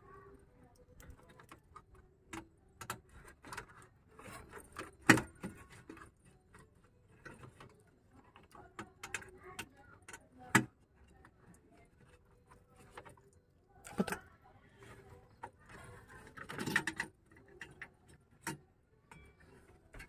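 Faint, irregular clicks, knocks and rubbing of hands working on the back of a Mitsubishi Canter truck's headlight housing, handling its plastic parts and rubber dust cap to replace a dead headlamp bulb.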